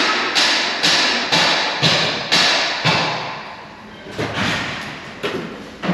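A plastic zip tie being pulled tight through its ratchet in a series of short zips, about two a second, slowing and growing softer after about three seconds, with one last sharper pull near the end.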